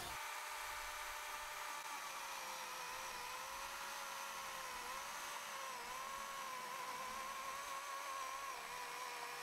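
Battery-powered Husqvarna chainsaw's electric motor and chain whirring steadily at a low level as it cuts through 4x4 lumber. Its whine dips slightly in pitch several times as the chain loads up in the wood.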